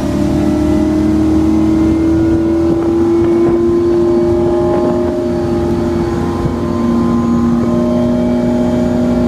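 A 2007 Malibu 247 LSV wakeboard boat running near full throttle at about 40 mph. Its inboard engine drones steadily, rising a little in pitch over the first few seconds, over a steady rush of water and wind.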